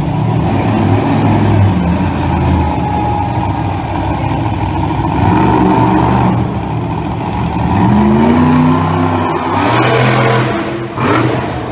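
Monster truck engine revving up and down, its note rising and falling several times. Near the end come a few sharp knocks and clatter as the truck climbs onto crushed cars.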